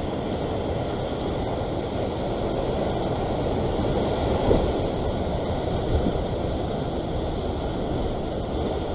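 Ocean surf washing and surging against the rock ledge below, a steady rushing noise that swells briefly twice, with wind buffeting the microphone.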